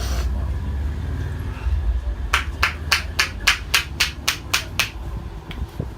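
A masseur's hands slapping the head in quick percussive strokes of an Indian head massage: about a dozen sharp smacks in a steady rhythm, roughly four a second, starting a couple of seconds in, over a low background rumble.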